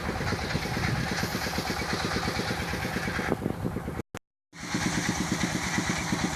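A small engine running steadily with a fast, even pulse. The sound drops out completely for about half a second around four seconds in, then resumes.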